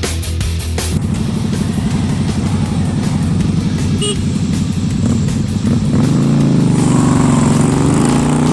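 Motor vehicle engine running steadily on the road. About six seconds in it gets louder and its pitch rises and falls as it changes speed.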